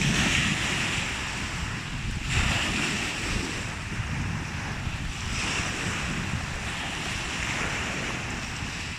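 Sea waves breaking and washing in, swelling a few times, with wind rumbling on the microphone.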